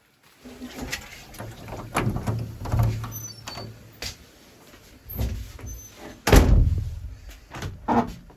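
A door being handled: a series of knocks and rattles, then a heavy thud about six seconds in.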